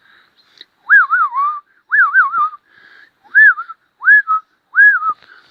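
A person whistling five short phrases at a bird, each a quick upward swoop followed by a wavering fall, about a second apart.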